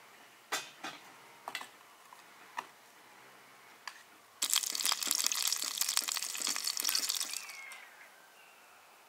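Enamel pots set down on the metal top of a wood stove with a few sharp clinks, then about three seconds of steady crackly hiss as something is poured into a pot, fading out near the end.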